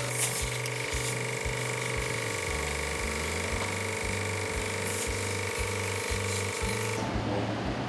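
Background music with a steady beat and bass line, over a steady mechanical whine and hiss that cuts off about seven seconds in.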